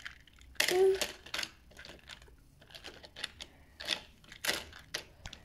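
Plastic toy train track pieces being handled and fitted together: a scattered string of sharp, light clicks and clatters.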